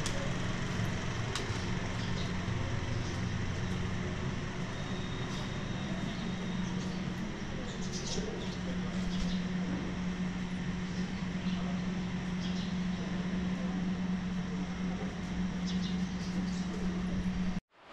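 Town street ambience with a steady low motor hum and scattered faint high chirps; it cuts off abruptly near the end.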